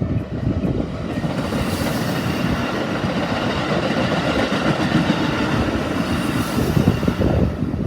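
Keikyu electric train passing over a level crossing at close range, a steady loud rumble of wheels and running gear on the rails.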